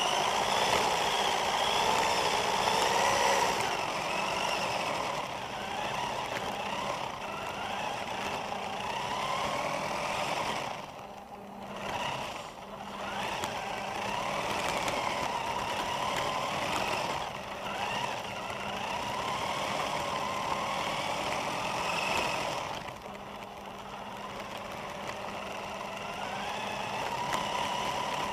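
Radio-controlled car's motor and drivetrain whining as it drives, the pitch rising and falling with throttle, over the rattle of its tyres on the ground. The whine drops away briefly twice, about eleven seconds in and again near twenty-three seconds, as the throttle is let off.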